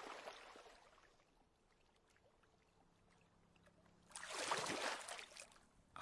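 Cartoon water splash sounds. A splash dies away over the first second, then after a quiet stretch a second watery splash comes about four seconds in and lasts about a second and a half.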